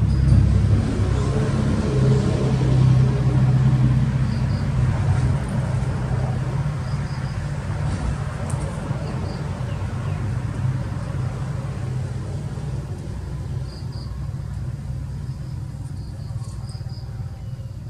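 Low, steady engine rumble, loudest in the first few seconds and then slowly fading away, with short high chirps now and then.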